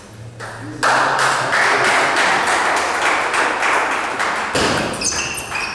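Spectators clapping and applauding after a table tennis point, dense clapping for about four seconds that fades away. Near the end come a few sharp clicks of the ball on bat and table as the next rally starts.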